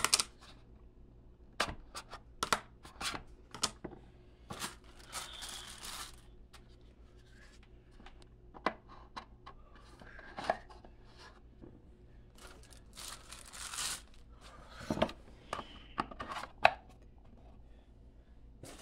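Scattered knocks and clicks of black walnut dice-tower parts being handled and set down on a table, with stretches of packaging paper rustling about five seconds in and again around thirteen seconds in.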